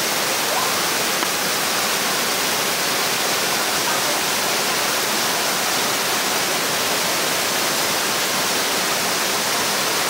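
Rushing water of a waterfall and rocky mountain stream: a steady, even rush with no break.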